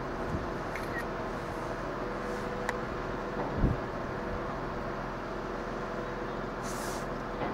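Heavy site machinery at a crane lift, its engines giving a steady drone with a few fixed tones. A single dull thud comes about three and a half seconds in.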